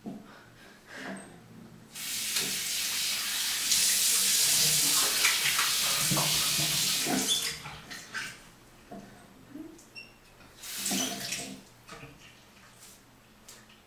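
Water running from a bathroom tap into the sink for about five seconds, then stopping, followed by a few short splashing sounds.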